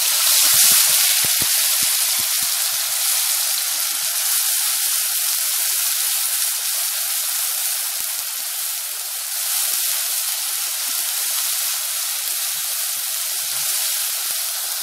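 Onion, garlic and ginger paste frying in hot oil in a metal kadhai: a steady sizzle as it is stirred, with a few light clicks in the first couple of seconds.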